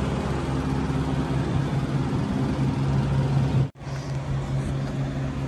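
Refrigerated delivery truck running, a steady low diesel hum. It drops out for a split second about two-thirds of the way through.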